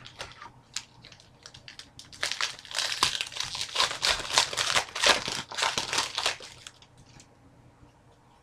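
Trading card pack wrapper crinkling as it is handled. The crinkling is densest for about four seconds in the middle, with scattered light clicks before and after.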